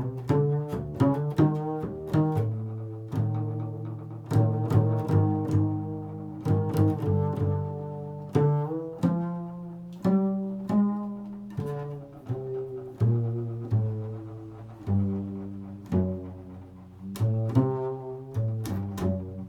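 Improvised instrumental music: a run of low and mid-pitched plucked notes, each starting sharply and ringing out before the next, a few notes a second.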